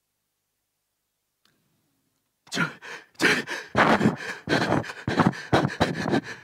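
A person's voice giving a rapid run of loud, heaving sighs and gasps, starting about two and a half seconds in.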